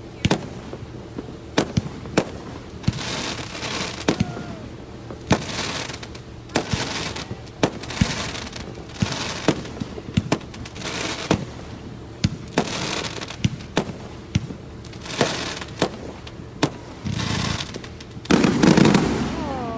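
Aerial fireworks display: a steady run of sharp booms from shells bursting, about one a second, many followed by a spell of crackling. Near the end comes a louder, longer rush.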